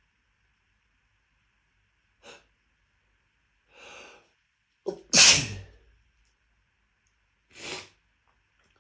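One loud sneeze just past the middle, part of a sneezing fit brought on by dust. It is preceded by a short sniff and a drawn-in breath with a sharp catch, and followed by another quick breath near the end.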